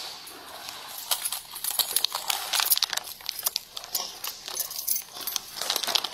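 Clear plastic evidence bag crinkling and rustling as it is handled in nitrile-gloved hands, with many small irregular clicks and ticks.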